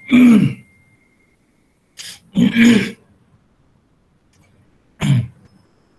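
A man clearing his throat, three short rasping bursts a couple of seconds apart.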